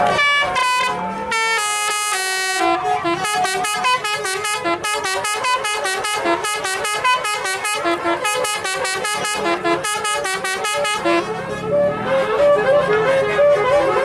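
A tour bus's Basuri 'telolet' multi-tone horn playing a fast melody of short, staccato notes. A few high notes open it, a dense repeating run follows, and about eleven seconds in the tune shifts to a lower run of notes.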